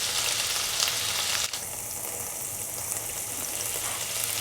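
Marinated anchovies shallow-frying in oil in a pan, a dense steady sizzle. About a second and a half in, it drops suddenly to a softer sizzle.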